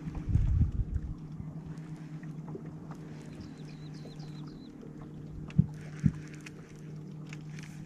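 Steady hum of a boat's motor, with a brief low rumble about half a second in and two sharp knocks, half a second apart, a little past halfway.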